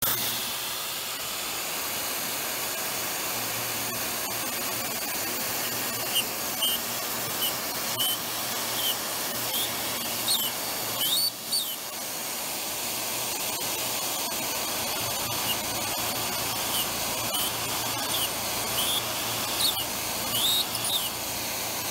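Mist coolant sprayer hissing steadily on full blast while a CNC mill drills a small deep hole in aluminium. Short high squeals from the drill cutting come about one or two a second in two runs.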